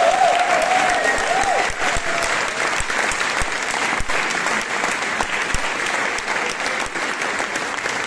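Audience applauding steadily in dense clapping after a choir song, with a voice trailing off in the first two seconds.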